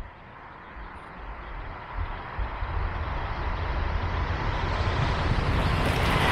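EP20 electric locomotive hauling Talgo Strizh coaches approaching at high speed: a rush of wheels on rails that grows steadily louder as the train nears, reaching full loudness as it arrives near the end.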